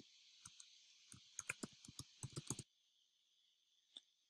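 Faint typing on a computer keyboard: a quick run of keystrokes from about a second in, lasting about a second and a half, then a single mouse click near the end.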